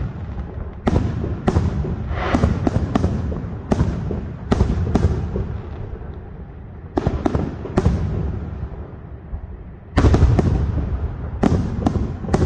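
Aerial fireworks shells bursting in an irregular series of sharp bangs, each fading in a long rumbling echo. A dense, louder cluster of bursts comes about ten seconds in.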